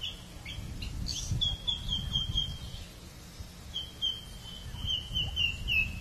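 A bird calling in two runs of short, quickly repeated high notes, about five a second, with a few single chirps before them. A low rumble sits underneath.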